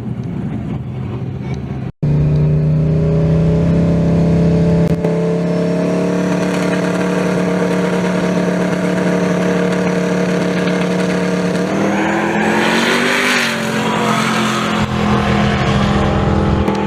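Drag race car engine running loud at a steady high pitch. A brief cut-out comes about two seconds in. Near the end the pitch climbs and a louder, rougher burst rises over it before the engine settles back to a steady note.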